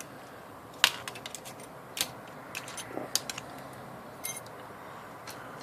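Scattered sharp metallic clicks and clinks of tools and small parts being handled while an IBM Selectric typewriter is taken apart. The loudest click is about a second in.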